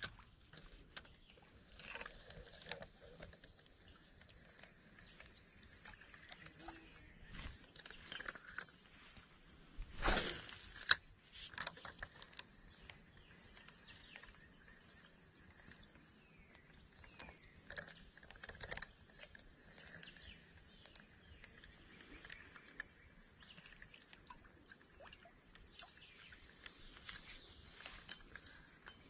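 Quiet outdoor ambience at a creek bank: scattered small clicks and rustles, with a faint steady high-pitched tone through much of it. A louder rustle about ten seconds in is followed by a sharp click.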